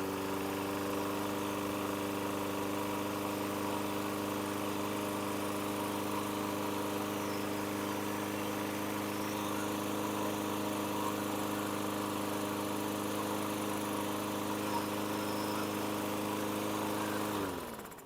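Walk-behind lawn mower's small single-cylinder engine running at a steady speed. Near the end it winds down and stops as it is shut off.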